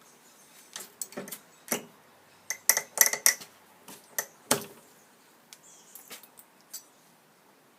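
Hammer tapping a nail into a wooden gate post to start pilot holes for screws: about a dozen sharp, ringing metallic taps, bunched in a quick run around the middle, followed by a few lighter clicks.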